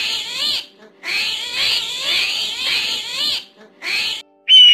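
Armadillo giving rapid runs of high, squeaky calls, each note quickly rising and falling in pitch, in bursts broken by short pauses. Just before the end a different loud, high call cuts in and slowly falls in pitch.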